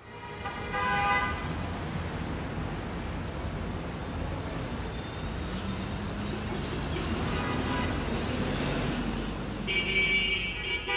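City street traffic: a steady rumble of passing cars, with a car horn honking about a second in and again near the end.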